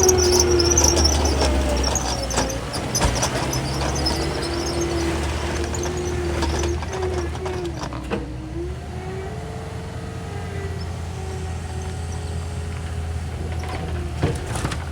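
Skid steer running steadily with a whine that wavers in pitch and dips about halfway through, with scattered clanks and knocks.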